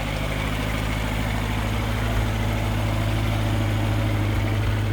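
Engine of a small vehicle used for clearing snow, running steadily with an even low hum.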